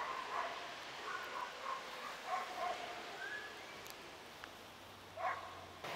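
Dogs barking faintly: scattered short barks, several in the first three seconds and another burst a little after five seconds.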